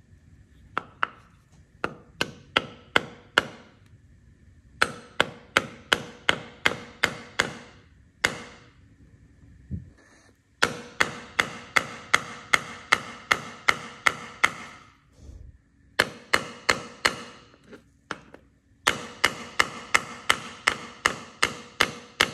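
Hammer blows on metal, about three a second, in runs of several strikes broken by short pauses, each with a brief metallic ring: a part being pounded back into place in a reciprocating saw.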